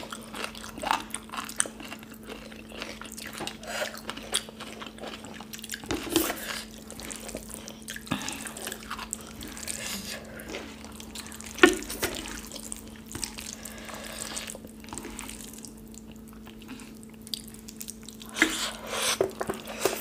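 Close-up eating sounds: fingers squishing and mixing rice soaked in kadhi, and mouths chewing and smacking wetly, with scattered short clicks and smacks.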